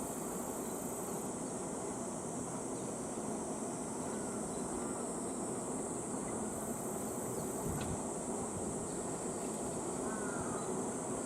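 Steady, high-pitched insect chorus over a low, even background rumble; a second, higher insect buzz comes in twice, briefly at the start and again about seven seconds in.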